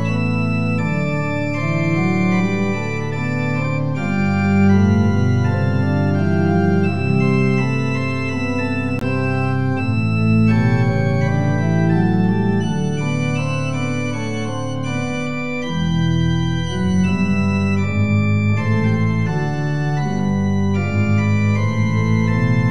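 Organ playing a slow prelude: sustained chords that change every second or two over deep, low bass notes.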